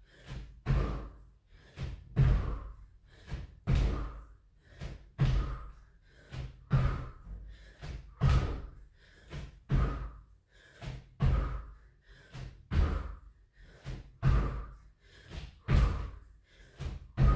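Feet landing jumping squats on an exercise mat over a wooden floor: a heavy thud about every second and a half, each with a softer knock just before it.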